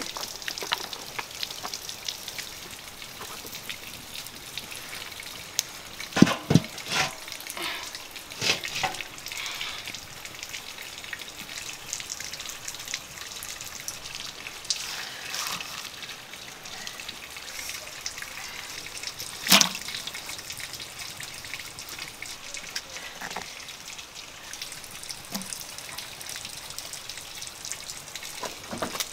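A steady hiss like running water, with a few sharp knocks and clatters; the loudest come about a fifth of the way in and about two-thirds of the way in.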